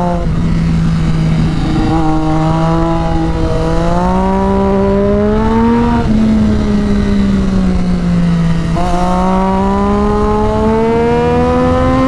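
Sport bike engine pulling hard through corners: the revs climb steadily for a few seconds, drop sharply about six seconds in as the rider shifts or rolls off, sag for a few seconds, then climb again near the end. Wind rush on the microphone underneath.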